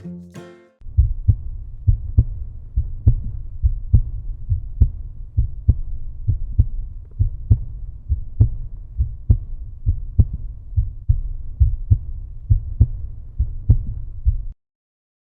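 Outro music: a muffled, bass-heavy rhythmic beat, a little over two beats a second, that cuts off suddenly near the end, after a brief plucked and bowed string passage at the start.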